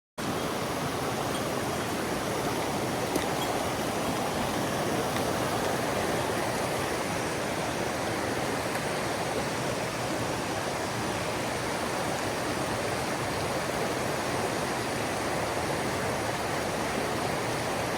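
Mountain stream water rushing, a steady even wash of noise, with a single small click about three seconds in.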